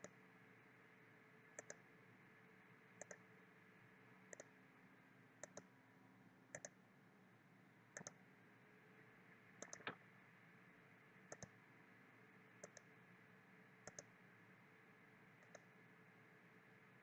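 Faint computer mouse button clicks, mostly in quick press-and-release pairs, about one pair every second and a half, placing knife-tool cut points, over a low steady hiss.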